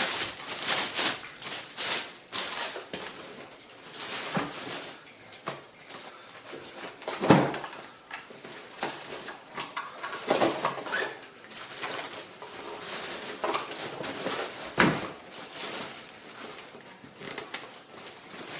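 Rustling and clattering as a cordless impact wrench and its accessories are handled and packed into their bag, with a few louder dull knocks.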